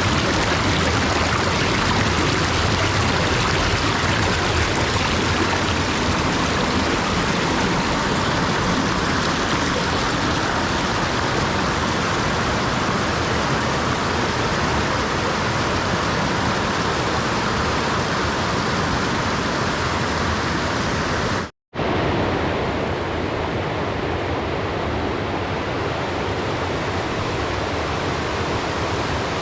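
Water rushing steadily down a partly frozen waterfall, a loud even roar. It cuts out for a split second about two-thirds of the way through, then carries on slightly duller.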